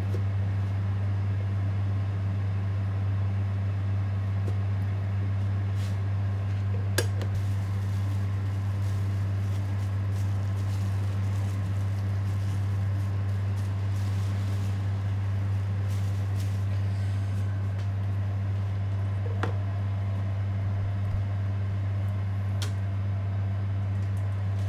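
Steady low mechanical hum, like a kitchen fan or refrigeration unit, with a few light clicks and knocks of a knife and utensils on a wooden cutting board.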